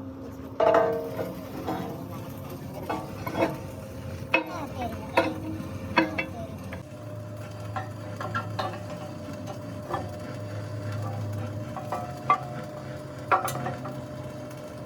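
Metal tools and parts clinking and knocking together in an irregular run of sharp strikes, some ringing briefly, over a steady low hum.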